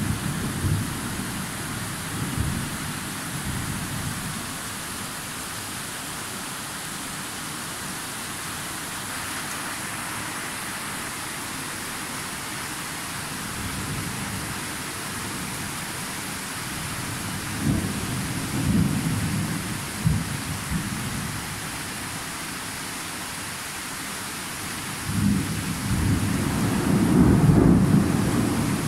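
Thunderstorm: steady rain hiss with rolling thunder. A rumble fades out in the first seconds, a few shorter rumbles come about two-thirds of the way in, and a longer, louder roll of thunder builds near the end.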